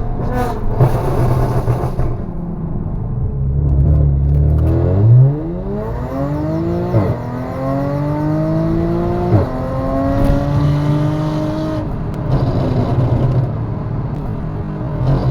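Straight-piped supercharged V6 of a B8 Audi S4 accelerating hard from low revs. The engine note climbs, drops sharply at two quick DSG upshifts, first about halfway through and again a couple of seconds later, and climbs once more before breaking up into a rougher, uneven note near the end.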